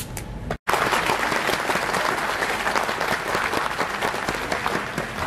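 Audience applauding, dense clapping that starts abruptly about half a second in.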